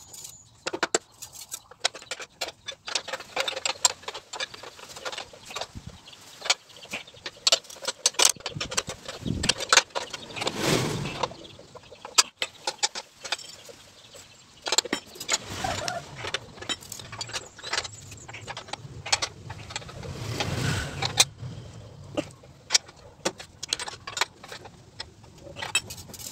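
Steel spanners and bolts clinking and knocking irregularly against the steel housing of a grass-chopper machine during assembly. Two longer swells of noise come about ten and twenty seconds in.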